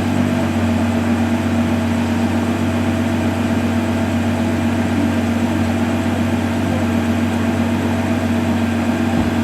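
Ferrari 812 GTS's 6.5-litre naturally aspirated V12 idling steadily with an even, unchanging hum.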